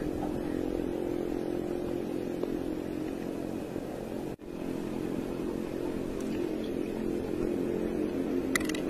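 A steady low droning hum that cuts out for an instant about four and a half seconds in, with a few sharp clicks near the end.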